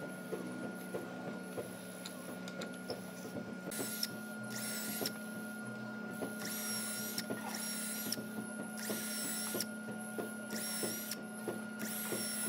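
A small workshop power tool whirring in short repeated bursts, about one a second, starting a few seconds in, over a steady machine hum and light clicking.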